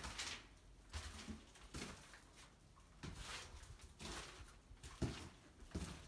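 Footsteps of a person walking across a floor covered with protective construction paper, about one step a second, each a soft thud with a papery rustle.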